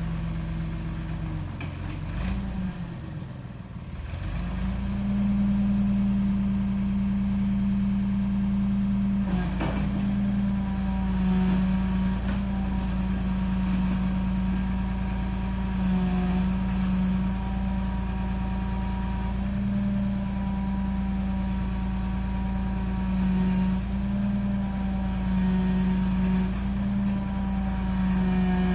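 Backhoe engine running. About two seconds in its note sags and dips, then it picks back up and holds a steady, higher pitch, with a single knock about nine seconds in.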